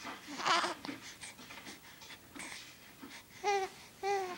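A young infant making voice sounds: a short wavering coo about half a second in, then two short high-pitched coos near the end, with small breathy noises between.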